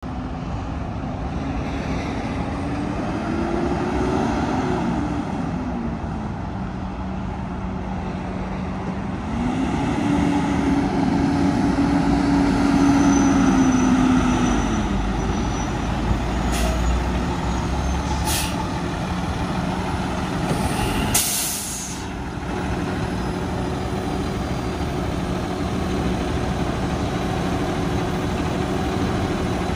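2012 Peterbilt 320 garbage truck's diesel engine pulling away and revving up twice, its pitch rising and falling. Then come two short air-brake hisses and a longer one, after which the engine settles into a steady idle.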